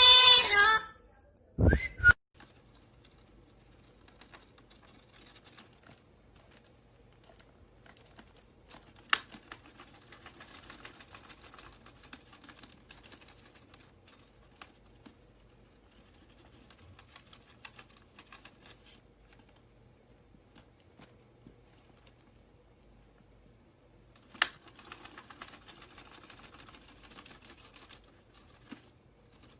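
A short whistled call right at the start, a single thump about two seconds in, then long spells of faint scattered clicking and scratching, like a parrot working its beak and claws on something.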